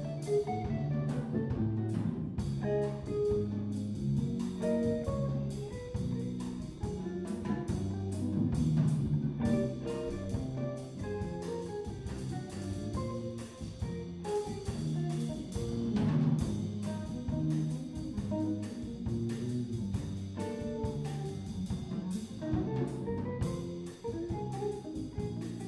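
Small jazz band of hollow-body electric guitar, electric bass and drum kit playing a swing tune, with cymbals ticking out a steady beat. An instrumental stretch with no singing.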